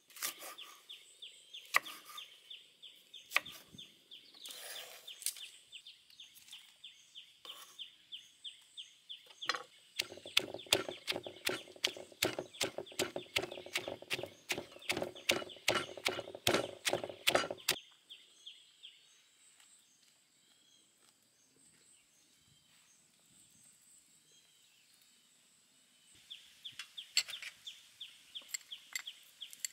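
A knife chopping red chillies on a wooden cutting board, a scatter of sharp cuts. About ten seconds in, a stone pestle pounds chillies in a stone mortar at about four strikes a second for some eight seconds, and strikes come again near the end. A faint steady high whine sits underneath.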